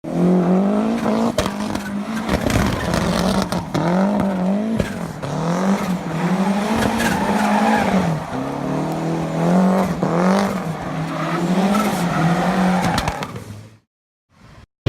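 Mazda Miata's four-cylinder engine revving hard and repeatedly rising and falling in pitch as the car does donuts, with tire squeal. It cuts off suddenly near the end.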